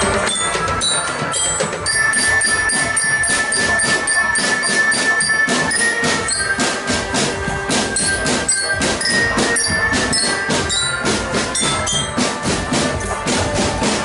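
A marching drum band playing: rapid, dense drum strokes under a held melody line and short, high, bell-like notes.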